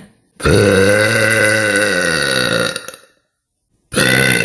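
A woman's long, loud, low-pitched burp lasting about two and a half seconds, its pitch rising slightly and then falling. After a short silence a second drawn-out burp begins near the end.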